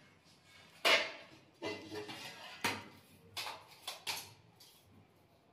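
Ceramic tiles and hand tools being handled on a hard floor: a series of sharp knocks and clatters, the loudest about a second in, dying away after about four seconds.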